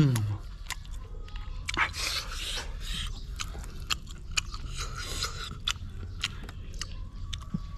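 A person chewing and biting into cooked fish close to the microphone: a run of wet clicks and crunches, busiest around two and five seconds in.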